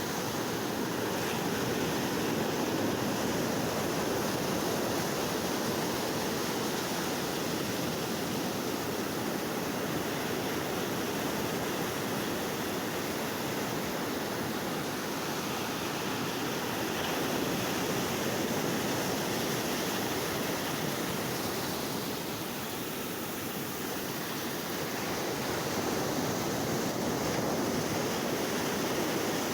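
Sea waves washing on the shore: a steady rushing surf that swells and eases gently, dipping a little about two-thirds of the way through.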